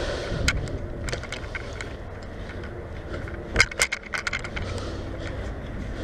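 Scattered sharp clicks and metallic rattling at irregular spacing, with a cluster of loud clacks about three and a half to four and a half seconds in.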